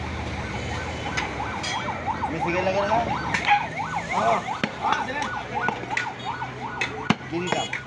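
A siren rising in pitch, then sweeping quickly up and down, about three sweeps a second. One sharp knock comes near the end.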